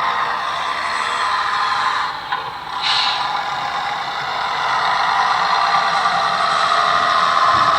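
Hornby TXS sound decoder in a Dapol Class 121 model railcar playing diesel railcar engine sound through its small speaker as the model runs, with a short hiss about three seconds in.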